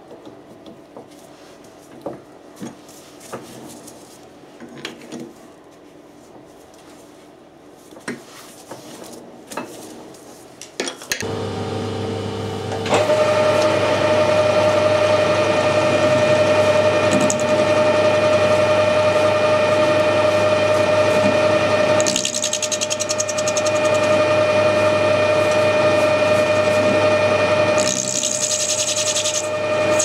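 Metal lathe: light clicks and knocks as a bronze plug is clamped in the three-jaw chuck, then about eleven seconds in the lathe starts and runs steadily with a strong steady whine and low hum while a tool faces the end of the plug. A higher hiss comes in twice during the cut.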